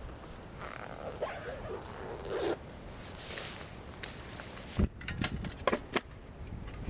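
Rustling and scraping of gear being handled, with a brief rasping pull, then a quick cluster of sharp clicks and knocks.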